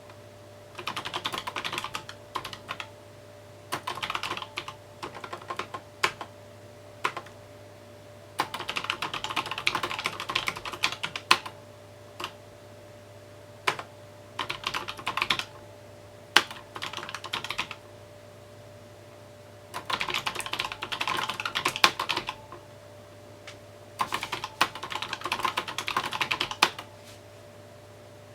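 Typing on a mechanical keyboard: quick runs of keystrokes lasting a second or two, separated by short pauses, with the odd single louder key press between runs.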